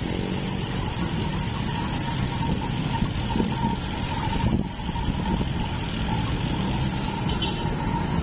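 Riding a motorcycle in city traffic: steady engine, wind and road noise from the moving bike, with other traffic around it.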